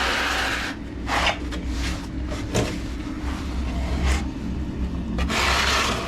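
Scraping strokes as Penetron waterproofing compound is smeared onto the wall of a garage inspection pit. There is one long rasping stroke at the start, a few short scrapes and knocks in the middle, and another long stroke near the end.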